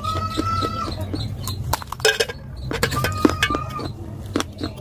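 Slate pencil pieces coated in slate-powder paste being bitten and chewed, a run of sharp crunches. Twice a high, thin held tone sounds over them for under a second.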